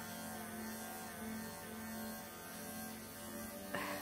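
Bravura electric pet clippers running with a steady hum as the blade works through a thick, matted pelt on a long-haired cat's coat. A short knock sounds near the end.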